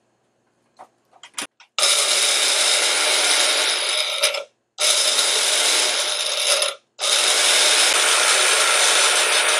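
A small personal blender chopping cucumber pieces in three pulses. A few light clicks come as the jar goes onto the base. Then the motor runs for about two and a half seconds, stops briefly, runs for two seconds, stops, and starts again.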